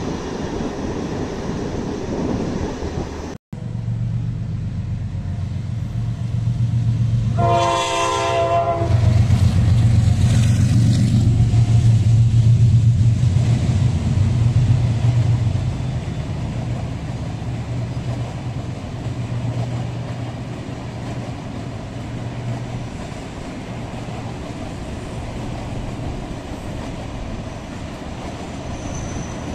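Diesel-hauled passenger train running past below at speed. About a quarter of the way in, a train horn sounds one blast of about a second, followed by a strong low engine drone that eases off as the train moves away. The rumble cuts off abruptly a few seconds before the horn.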